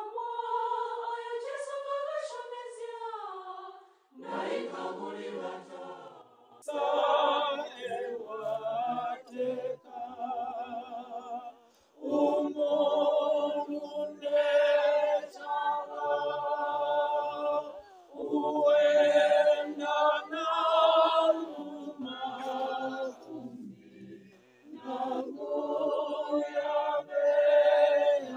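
A group of voices singing unaccompanied in harmony, a choir singing a hymn-like song in phrases with short breaths between them.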